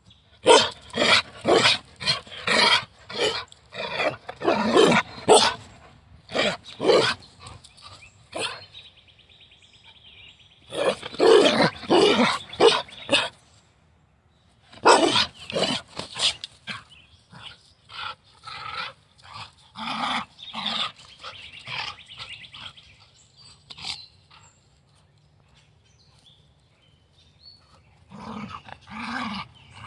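Carolina dog growling and barking in play, in quick repeated bursts that come in several spells with short pauses between them.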